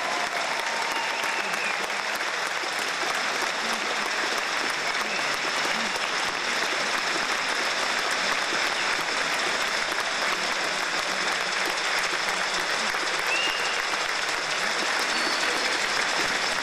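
A small audience applauding steadily, many hands clapping at an even level.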